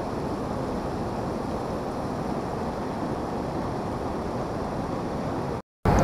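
River rapids rushing steadily over rocks, a continuous even wash of water noise that cuts off abruptly near the end.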